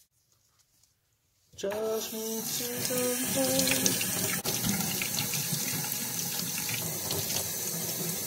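Near silence, then about a second and a half in a utility-sink faucet starts running steadily, the water splashing over a gloved hand as small nuts and screws are rinsed under it. A wavering pitched whine sounds over the first couple of seconds of the flow.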